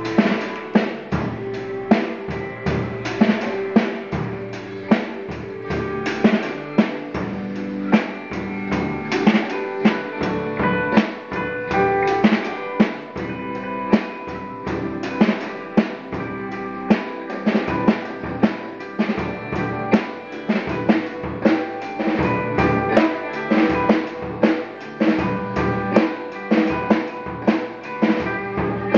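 Amplified electric guitar playing melodic lines over a drum kit that keeps a steady beat.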